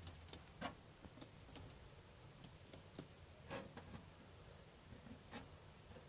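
Near silence with a few faint, short clicks and ticks at irregular moments.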